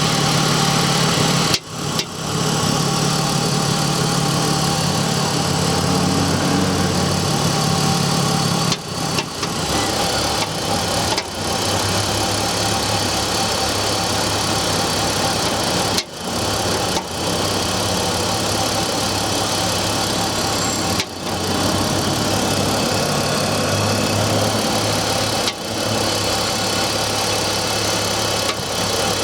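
BMW E46's M54 inline-six engine idling cold, with the knocking sound that the owner is showing on a cold engine. The engine note drops lower about eight seconds in, and the sound briefly dips several times.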